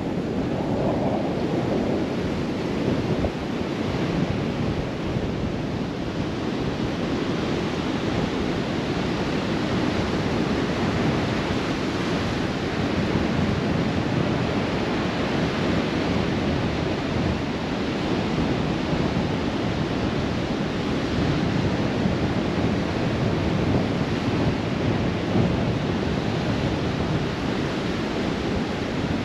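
Sandstorm wind rushing over the microphone, mixed with a steady wash of ocean surf on the beach.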